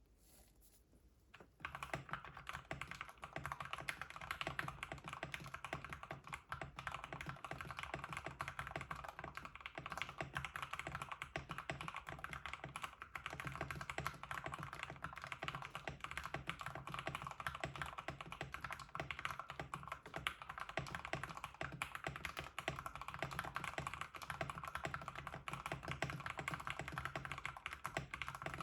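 Custom 65% mechanical keyboard with a POM plate and lubed Everglide Aqua King linear switches, typed on continuously at a quick, uneven pace. The typing starts about a second and a half in.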